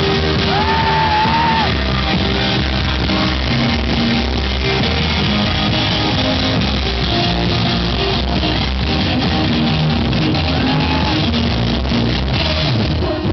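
Live rock band playing loudly: distorted electric guitars over bass and a drum kit, heard through a large hall's PA.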